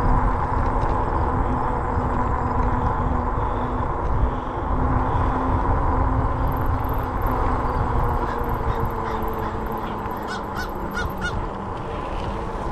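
Wind on the microphone and tyre noise from a moving electric fat-tire bike, with a steady hum from its hub motor. About ten seconds in, a bird gives four short harsh calls in quick succession.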